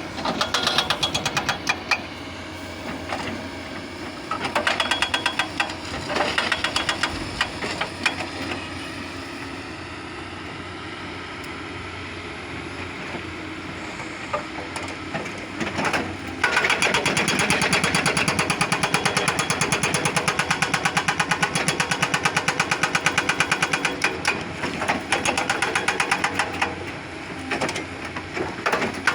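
Doosan hydraulic excavator's diesel engine running with a fast, even pulse, growing louder for stretches near the start and for most of the second half as it works under load, and settling back to a quieter, steadier run in between.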